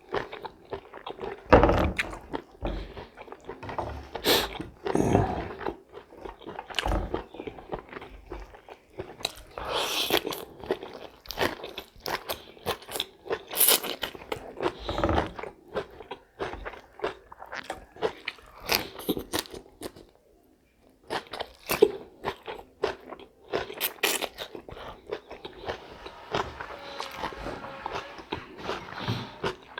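A person eating close to the microphone: irregular bites and chewing of a chicken meal, with a brief pause about twenty seconds in.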